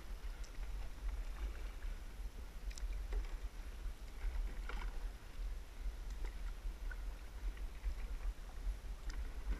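Double-bladed kayak paddle stroking through calm river water: soft splashes and drips from the blades every second or two, over a steady low rumble.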